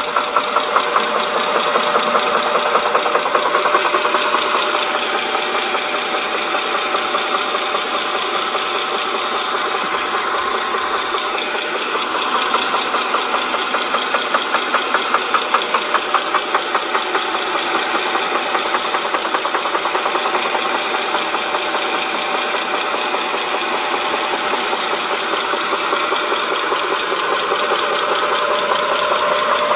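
2.7-litre V6 engine of a 2007 Dodge Charger running steadily with a fast, even clatter from the timing chain. The owner puts the noise down to a broken timing chain guide or tensioner.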